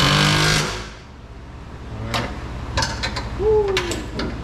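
Cordless drill running briefly to drive a race-car seat mounting bolt, stopping under a second in. Then come a few light clicks and clanks of the tool and bolts against the aluminium seat and chassis, and a short creak.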